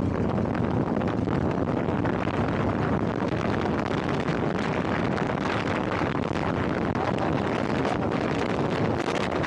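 Steady wind buffeting the microphone over the constant rumble of a moving vehicle.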